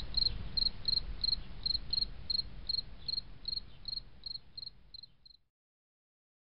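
Cricket chirping steadily, about three short high chirps a second over a faint low background hiss, fading and stopping about five seconds in.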